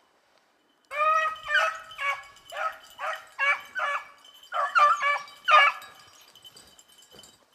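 Beagle hounds baying: a quick string of about ten loud, drawn-out bays over some five seconds, then they stop.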